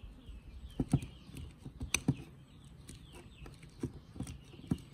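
Bananas being mashed in a stainless steel bowl: a utensil knocks and scrapes against the bowl in short irregular taps, several over a few seconds. Small birds chirp steadily in the background.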